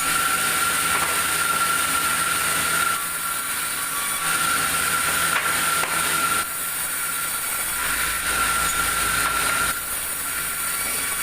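Sawmill saw running and cutting a log, a steady mechanical noise with a constant high whine that eases slightly a few times.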